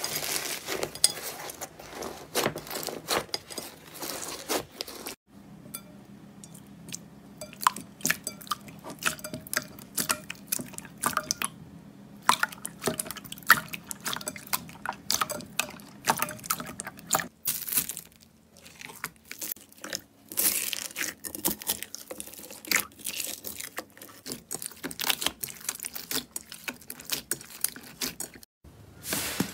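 Slime being squeezed, pressed and stretched by hand: wet squishing with many small, sharp clicking pops of trapped air.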